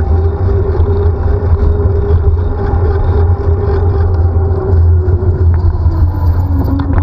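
A motor vehicle's engine running steadily under heavy low wind rumble, its pitch dropping a little about five and a half seconds in.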